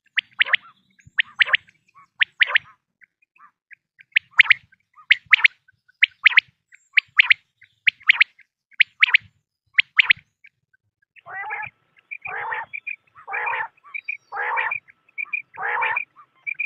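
Quail calling. For about the first ten seconds it gives a quick run of short, sharp, high notes, a call every half-second to second. From about eleven seconds in, longer and lower calls alternate with brief high notes.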